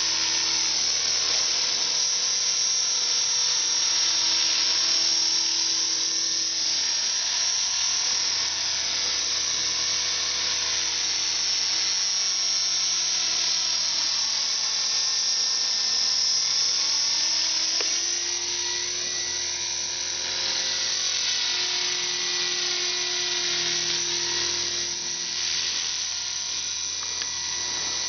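Align T-Rex 450 electric RC helicopter flying: a steady high-pitched whine from its electric motor, gears and rotor. The pitch rises and falls over and over as it manoeuvres.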